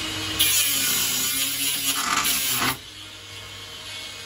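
Cordless angle grinder spinning, then cutting into the fruit machine's cabinet with a loud, harsh grinding hiss for about two seconds. The cut breaks off sharply just before three seconds in, leaving the tool quieter.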